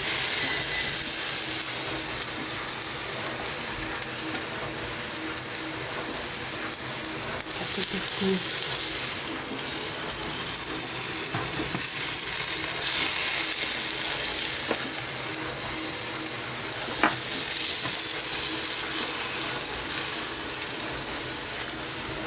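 Frying sizzle from a hot non-stick pan of almond-crusted cod fillets and loose crust crumbs, swelling several times, with a spatula scraping and clicking against the pan now and then.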